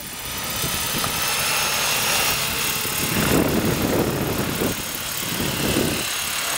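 R/C model aircraft engine running steadily, a thin high whine over a noisy haze.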